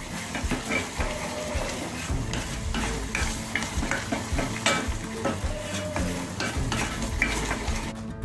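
Wooden spatula stirring and scraping thick red chilli chutney around a granite-coated pot, with irregular knocks against the pot, while the paste sizzles in its oil on the flame. The paste is cooked down to the stage where the oil has separated out.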